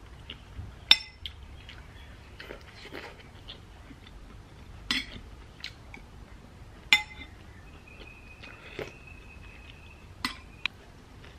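Metal spoon clinking against ceramic bowls while eating, five sharp clinks spread out: one about a second in, two in the middle and two close together near the end.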